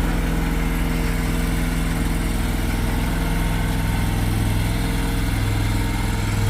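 An engine running steadily at a constant speed, getting slightly louder near the end.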